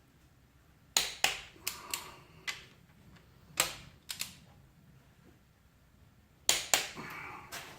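Torque wrench set to 53 ft-lb clicking as bolts on an LQ4 V8 block are tightened. Sharp single clicks, some in quick pairs, with short pauses between.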